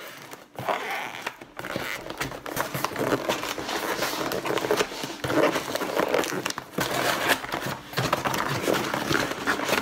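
Cardboard shipping box being handled and opened by hand: the cardboard flaps scraping, rustling and crinkling in an irregular run of small crackles.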